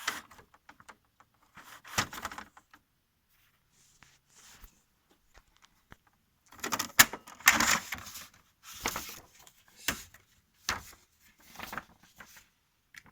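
Paper and a Canon MG5750 inkjet printer's paper tray being handled: scattered clicks and knocks with brief rustling. The busiest, loudest stretch of rustling and clicking comes a little past the middle. The printer is being reloaded after it reported no paper.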